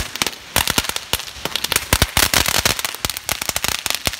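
Unicorn-shaped novelty fountain fireworks crackling as they burn: a dense, irregular run of sharp pops and crackles that stops near the end.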